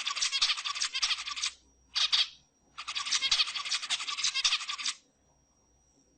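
Zebra finch song in three bouts of rapid chattering notes: a longer phrase, a short one, then another of about two seconds, stopping about five seconds in.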